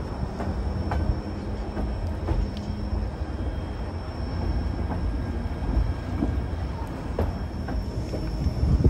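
White Pass & Yukon Route narrow-gauge passenger train rolling along the track, heard as a steady low rumble with scattered clicks and clanks from the cars.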